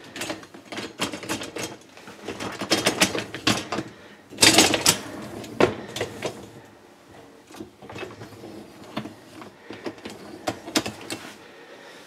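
Wire dishwasher rack rattling and clicking as its wheels are lined up and fitted onto the tub's rails, with a burst of louder clatter about four and a half seconds in.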